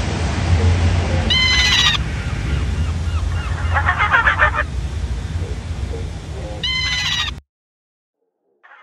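Eerie horror sound effects: a steady low rumble with two short, high-pitched shrieking calls, one about a second and a half in and one near the end, and a rapid stuttering cackle in the middle. It all cuts off suddenly, then a fainter cackle starts right at the end.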